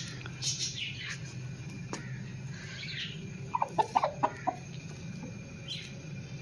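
Rooster clucking: a quick run of short, sharp clucks about three and a half seconds in, the loudest sound here, after a few faint high squeaks. A low steady hum sits underneath.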